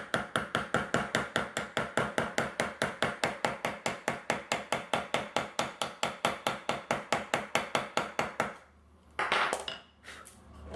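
Rapid, even hammer taps on a metal snap setter, about six a second, setting a line 24 snap cap into leather on a steel snap-setting anvil while the setter is worked round in a circle to roll the post over. The tapping stops about eight and a half seconds in, and a short handling noise follows.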